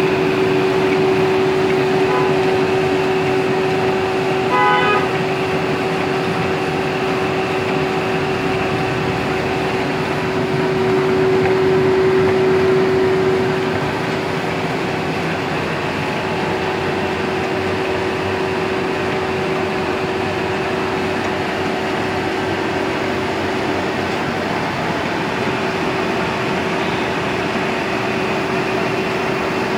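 Four-colour flexographic printing press running: a steady mechanical drone with a constant hum. A short toot sounds once about five seconds in, and the drone swells a little for a couple of seconds midway.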